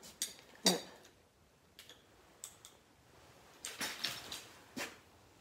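A handful of light, separate clicks and taps from handling and footsteps among framed pictures on a debris-strewn floor, with a small cluster of them about four seconds in.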